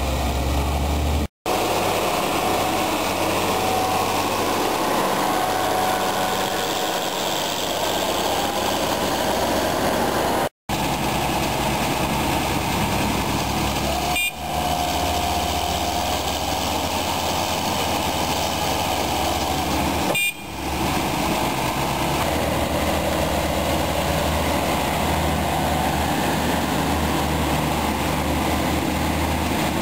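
Diesel engines of farm tractors running hard while towing a loaded semi-trailer truck out of mud, a steady engine drone broken by several brief cuts.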